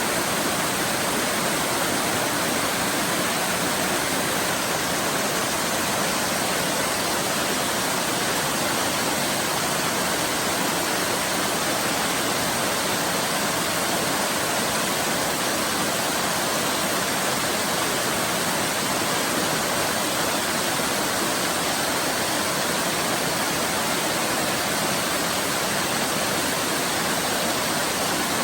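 Waterfall: a steady, unbroken rush of falling water that does not change in level.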